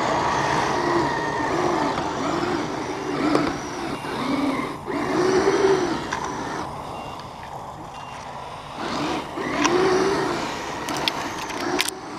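Electric motors and gear drives of radio-controlled snow vehicles whining, the pitch rising and falling again and again as the throttle comes on and off, with a few sharp clicks near the end.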